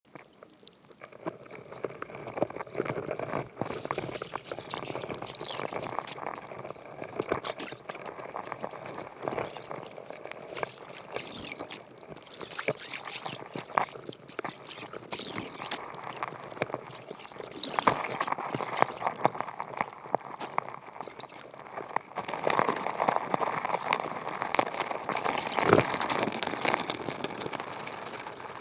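Underwater sound heard through an action camera's housing: a dense crackle of clicks and water noise that grows louder about two-thirds of the way through.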